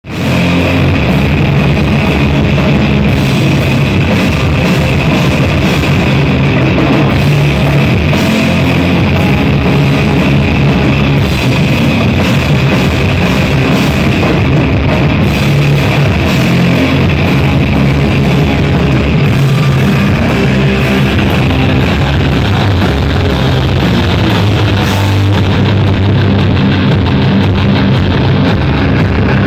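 Live rock band playing loud and dense without a break: electric guitars over a drum kit.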